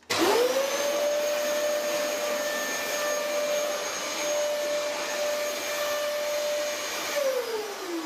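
Dyson DC33 upright vacuum cleaner switched on in hard-floor mode and passed over a tile floor. Its motor whines up to speed within half a second, runs steadily, and winds down with a falling whine near the end after it is switched off.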